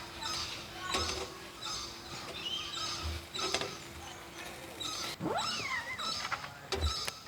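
Wild animal calls, short high chirps repeating less than a second apart, over a steady low hum that stops about five seconds in. Around then a single call sweeps upward and then wavers.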